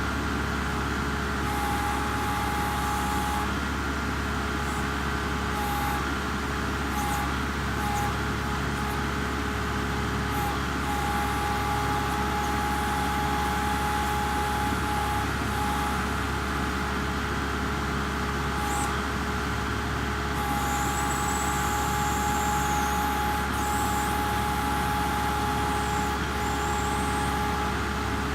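Kubota MX5800 tractor's four-cylinder diesel engine running steadily under work, with a high whine that breaks off and comes back several times, settling into a longer stretch in the second half.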